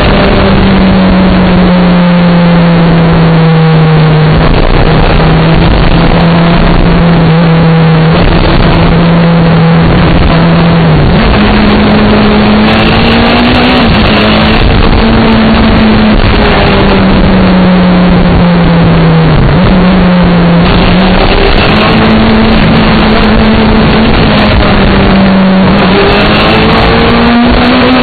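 Rally car's engine, heard from a camera mounted on the car, running hard at speed: its note climbs and then drops at each gear change, several times, over loud rushing wind and road noise.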